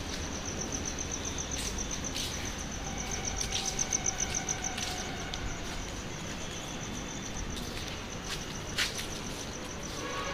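Cricket chirping in a steady, fast-pulsing high trill, with a few scattered short clicks.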